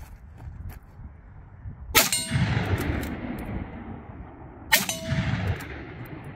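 Two rifle shots about three seconds apart, each followed by the ringing clang of a hit on a steel target and a rolling echo.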